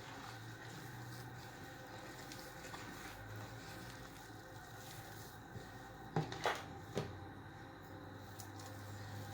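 Hands mixing flour into soft dough in a bowl: quiet squishing and patting, with three short knocks about six to seven seconds in.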